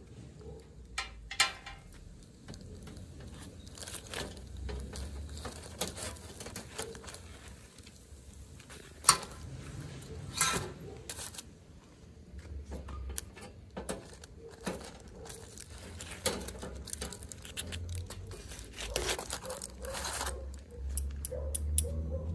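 Aluminium foil crinkling and rustling, with scattered clicks and knocks of things being handled.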